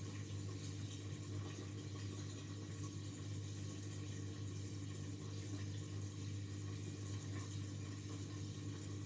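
Indesit 71252 washing machine running steadily mid-cycle: a low, even hum with a faint watery hiss above it.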